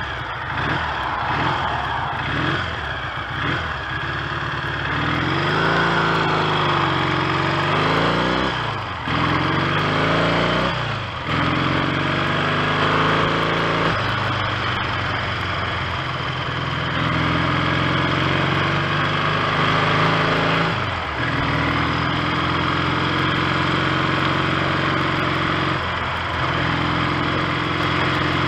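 1970 Triumph T100C's 500 cc parallel-twin engine being ridden on the road: the revs rise under acceleration, with brief drops in engine note at gear changes about 9, 11, 21 and 26 seconds in, over steady wind noise. The bike is running cleanly after a clutch repair and new ignition points.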